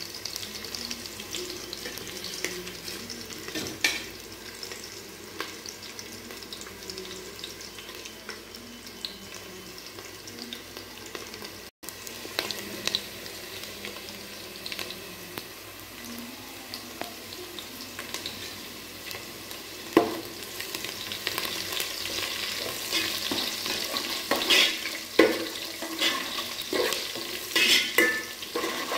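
Tamarind broth with onions and curry leaves simmering in a metal pot, a steady faint sizzle. In the last several seconds a perforated metal ladle stirs it, clinking and scraping against the pot.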